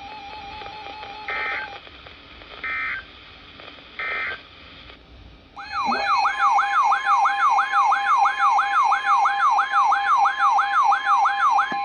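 Three short bursts of EAS digital data tones, the SAME end-of-message code that closes the warning. About two seconds later a loud electronic alert tone starts, repeating rising-and-falling sweeps about two and a half times a second over a steady tone.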